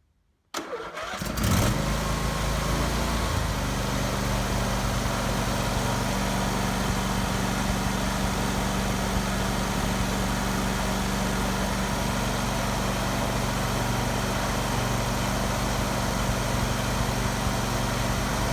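Husqvarna YTH23V48 riding mower's Briggs and Stratton V-twin engine cranking briefly, catching about a second in and settling into a steady run, its two spark plugs freshly replaced.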